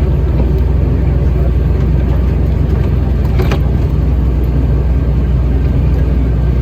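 Airport apron shuttle bus running, a steady low engine and road rumble, with one brief click about three and a half seconds in.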